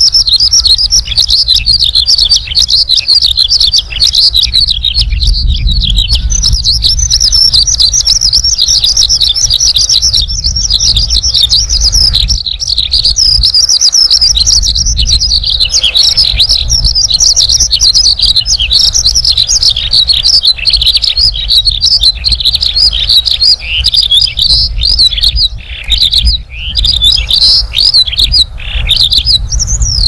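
A lark singing: a long, unbroken stream of rapid, high twittering and warbling notes, with a low rumble underneath.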